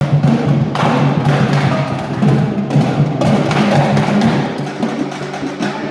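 Loud percussion-driven music: drums with sharp, wood-block-like clicks over sustained low notes, playing continuously.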